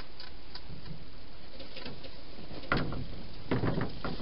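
Wild hedgehog feeding at its bowls: irregular clicking and crunching, faint at first and louder in clusters from about two and a half seconds in.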